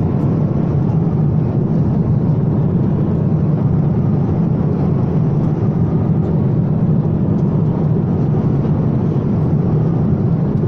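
Steady cabin noise of a jet airliner in cruise: a constant deep hum of engines and airflow heard from a window seat inside the cabin.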